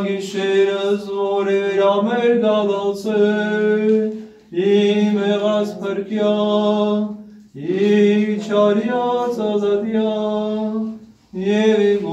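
A man's voice chanting an Armenian liturgical hymn unaccompanied, in long held notes: three phrases with short breaths between them, and a fourth begins near the end.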